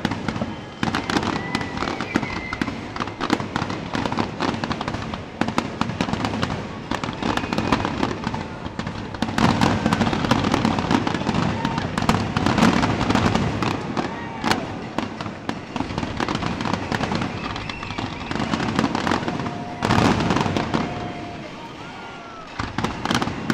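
Fireworks finale: a dense, rapid barrage of bangs and crackling that thins out near the end, then one last burst.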